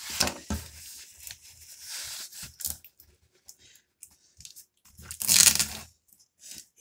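A parcel's packaging being cut open with a kitchen knife and torn by hand: irregular scraping and ripping, with one long, loud rip about five seconds in.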